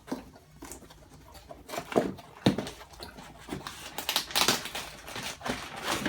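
Cardboard box and plastic packing being opened and handled: irregular rustling and crinkling, with a couple of sharp knocks about two seconds in as parts are lifted out.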